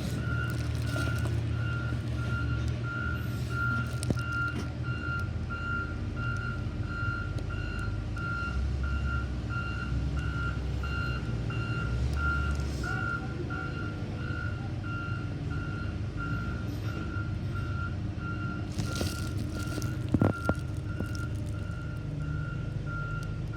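A vehicle's reversing alarm beeps steadily, about three beeps every two seconds, over a low engine rumble. A single sharp knock comes about twenty seconds in.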